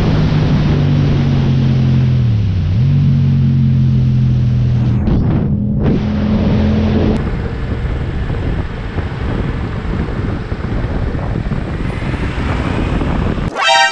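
Yamaha motorcycle engine running steadily at road speed with wind rush; its note dips briefly about two and a half seconds in. About halfway through, the sound gives way to wind noise and city traffic, and near the end a short, loud horn blast sounds.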